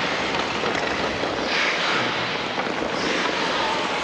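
Ice hockey skates carving and scraping on rink ice, with two louder scrapes in the middle, over a steady hiss.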